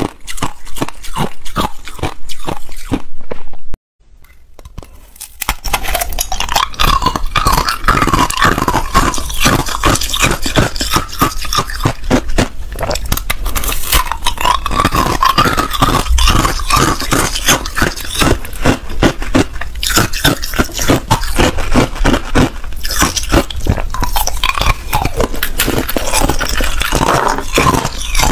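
Close-up crunching and chewing of hard ice: a dense, continuous run of sharp cracks. It cuts out briefly about four seconds in and fades back up.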